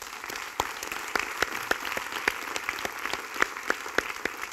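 Audience applauding, with the sharp claps of one clapper standing out at about four a second over the general clapping.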